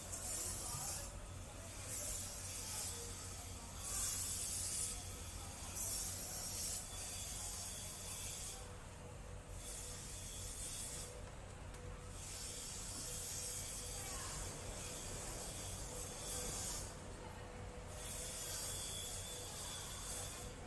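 A high hiss that starts and stops in spurts of about a second, over a steady low hum.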